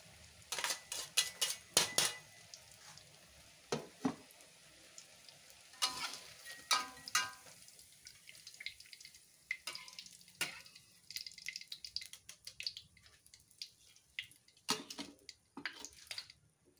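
Metal slotted spoon and ladle clinking and scraping against a wok over and over as tofu-egg fritters are lifted out of hot frying oil, with a light sizzle and oil dripping back into the wok.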